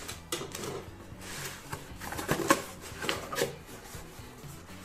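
Hands opening a cardboard shipping box: a handful of short scrapes and crinkles as the cardboard flaps and packing paper are pulled back.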